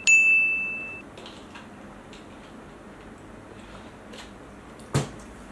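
A bright bell-like "ding" sound effect: one high ringing tone that starts sharply and dies away over about a second, marking the on-screen water-count tally. About five seconds in there is a single short knock.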